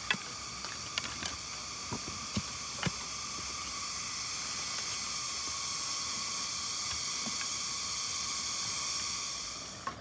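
A steady high-pitched hissing drone that slowly swells and drops away near the end, with a few light clicks of green sticks and vine being handled in the first few seconds.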